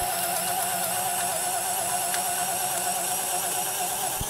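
Bosch 12-volt cordless drill on speed one boring a 1-inch spade bit into a wooden board, its motor running under load with a steady whine.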